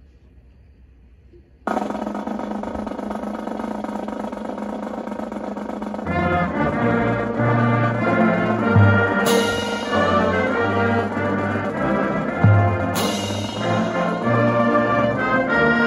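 High school marching band starting to play. After a brief quiet, a loud held chord over a drum roll enters about two seconds in. About six seconds in, the brass and drums break into a rhythmic tune, with two loud crashes a few seconds apart.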